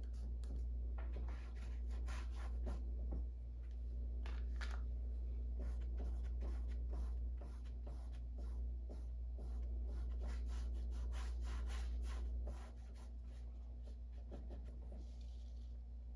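Paintbrush stroking black acrylic paint thinly over a textured canvas: many short brush strokes in quick succession, thinning out after about twelve seconds, over a steady low hum.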